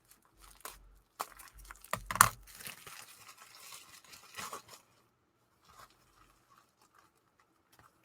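Packing wrap being torn and crinkled by hand as a wrapped stone is unwrapped: scattered rustles and crackles, loudest about two seconds in, dying away over the last three seconds.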